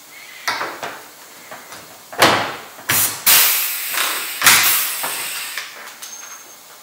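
Pneumatic rivet gun setting large-flange rivets through a plastic roof edge: a few trigger pulls, each a sharp snap followed by a burst of air hiss, between about two and six seconds in, with lighter knocks of the gun against the roof before them.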